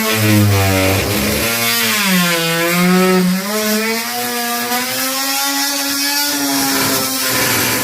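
Electric power tool motor running with a steady whine. About two seconds in, its pitch sags for a second or so, as it does when the tool is loaded, then climbs back up.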